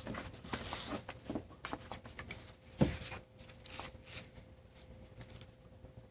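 A ball dropped onto a smartphone's screen glass strikes it once with a sharp knock about three seconds in, among lighter clicks and taps of handling.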